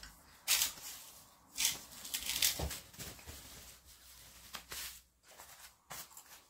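A disposable diaper crinkling in short, irregular rustles as it is put on a child, the loudest in the first couple of seconds.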